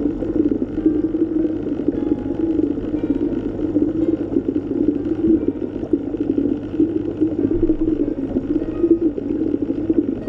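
Steady, muffled underwater ambience: water rushing and churning as heard under water, a continuous low hum with no breaks.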